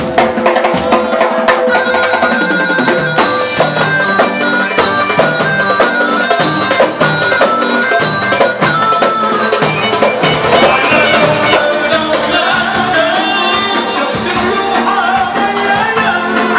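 Live Arabic wedding-band music: a melody over dense hand percussion from frame drums, darbuka and tambourine, with a drum kit.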